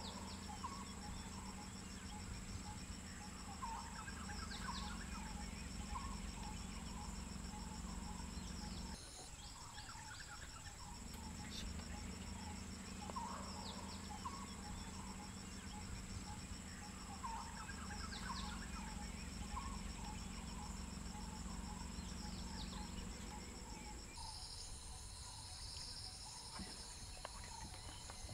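Insects trilling steadily at a high pitch, with scattered short bird chirps. A low steady hum runs underneath and drops out twice, about nine seconds in and again a few seconds before the end.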